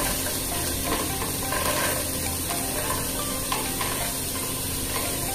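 Chopped vegetables sliding off a plate into hot oil in a steel pot and sizzling steadily, with a wooden spatula stirring.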